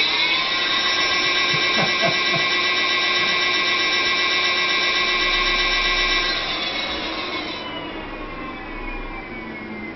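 Electric bike hub motor whining at full speed on a test stand, its pitch rising and settling just after the start. About six seconds in, the whine falls in pitch and fades as the wheel slows down.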